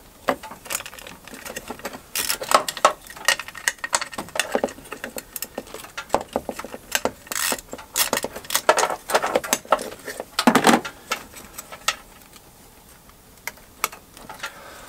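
Irregular clicks, taps and light rattles of hands and tools working on the boost solenoid and its hoses and fittings, with one louder knock about ten seconds in and quieter handling near the end.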